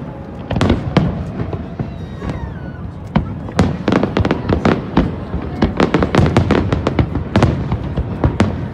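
Aerial fireworks shells bursting in a rapid, irregular run of sharp bangs and crackles, the reports coming thicker and faster from about halfway through.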